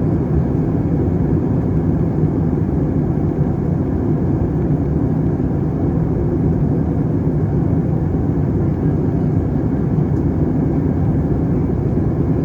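Steady, unchanging cabin noise of an airliner in flight, heard inside the cabin: a low, even roar of engines and rushing air.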